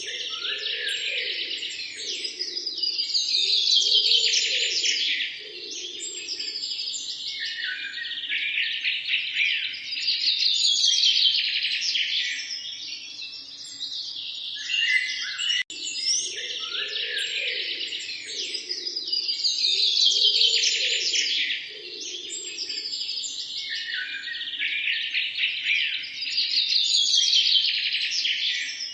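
Dense chorus of many small birds chirping and trilling, a birdsong track that loops and starts over about halfway through.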